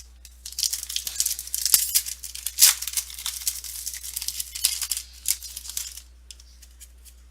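Foil wrapper of a football card pack being torn open and crinkled: irregular crackling and tearing for about five seconds, loudest about two seconds in, then stopping near the end.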